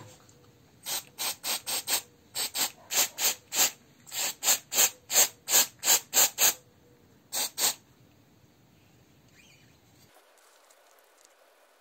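Aerosol spray can firing about twenty short bursts of hiss in quick clusters onto a brake master cylinder piston to clean it. The spraying stops about 8 seconds in.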